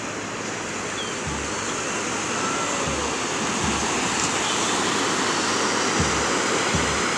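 Small waves washing and breaking on a beach, the surf noise swelling and easing, with a few short low thumps on the microphone.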